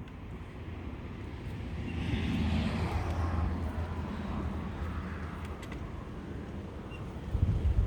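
Strong wind buffeting the microphone with a steady low rumble, and a heavier gust hits near the end. A rushing sound swells in the middle and fades slowly as its pitch sinks.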